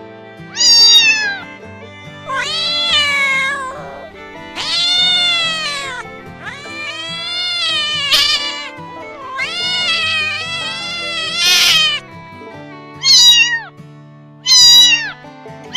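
Domestic cat meowing repeatedly, about eight drawn-out meows that rise and fall in pitch, some long and some short, with soft background music underneath.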